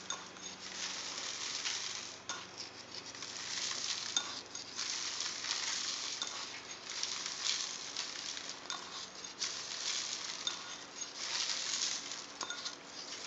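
Salt sprinkled by hand over quartered cucumbers in a plastic bowl: a soft hissing patter of grains landing, coming in a series of sprinkles a second or two long with short breaks between.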